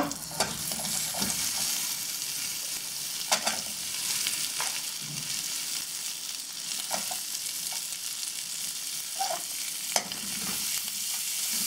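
Sliced onions sizzling as they fry in butter, with a spatula stirring and scraping the pan every second or two.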